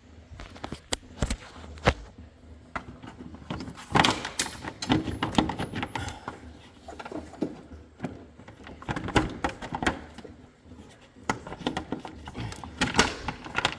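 Irregular clicks, knocks and rattles of hand tools and parts being handled while the radiator is taken apart, loudest about four seconds in and again near the end.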